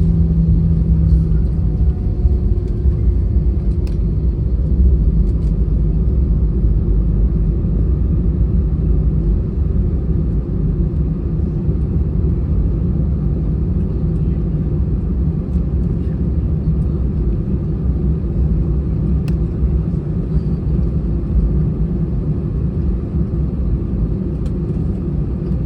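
Airbus A320-200 cabin noise just after landing: a steady low rumble of the engines and the wheels rolling on the ground. A faint steady tone fades out about two seconds in.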